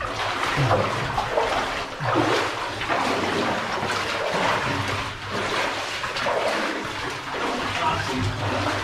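Boots splashing and sloshing through shallow water on the floor of a rock mine tunnel as two people walk through it.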